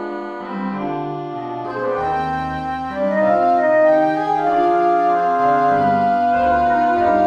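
Slow instrumental background music of held keyboard chords with an organ-like sound, growing louder about three seconds in.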